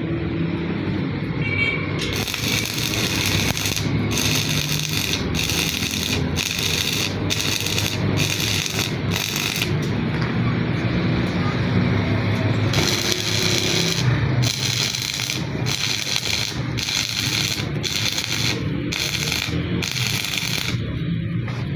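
Stick-welding arc crackling and sizzling with an E6013 rod, in two runs of several seconds each. The arc sound breaks off briefly about once a second, as in a stop-and-go or whipping bead on thin pipe. A steady low hum lies underneath.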